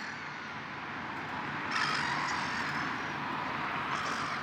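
A motor vehicle passing: a steady rushing noise that swells about two seconds in and slowly fades.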